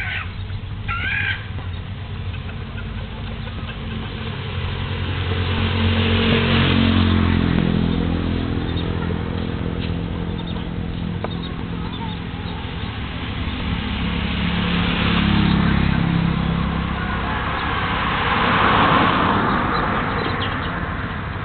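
Motor vehicles passing on a road, three in turn, each swelling and fading with an engine note that drops as it goes by. A chicken gives two short calls at the start.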